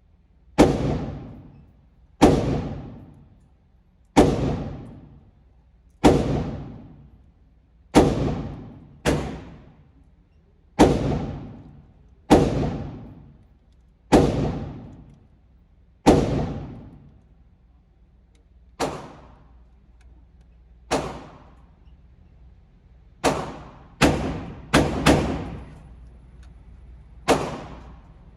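9mm Glock 19 pistol shots fired one at a time, roughly every two seconds, each followed by a long echoing tail. About seventeen shots in all; the later ones are quieter, and near the end three or four come in quick succession.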